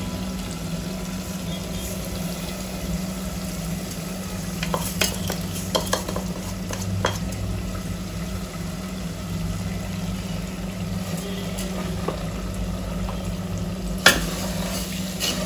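Wooden spatula stirring and scraping a sweet mixture with sugar in an aluminium pot as it cooks, with a light sizzle and a steady low hum underneath. The spatula knocks sharply against the pot a few times, loudest about fourteen seconds in.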